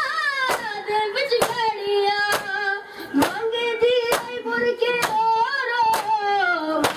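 Men beating their chests in unison with open hands (matam), a sharp slap about once a second, under a mournful lament (noha) sung continuously over the strikes.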